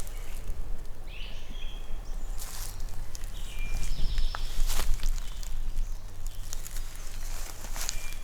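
Footsteps crunching through dry leaves and brush at a walking pace, over a steady low rumble, with a few short high chirps.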